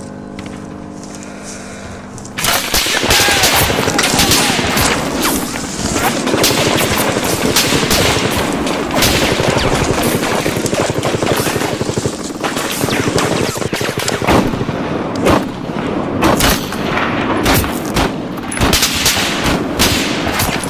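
Battle gunfire: rapid machine-gun and rifle fire, dense and continuous, breaking in suddenly about two and a half seconds in after a steady low drone.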